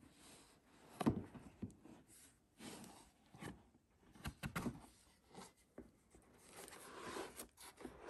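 Hands handling a rigid cardboard gift box. There is a knock as it is set down about a second in, then a few taps and rubs, and near the end the lid lifts open with a papery rustle.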